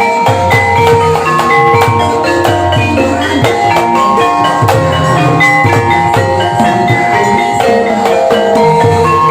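Javanese gamelan music accompanying an ebeg dance: mallet-struck keyed instruments play a busy, repeating pattern of short ringing notes over drums.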